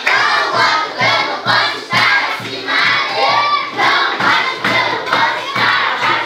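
A group of children singing a chanted song together in unison, with a steady beat about twice a second.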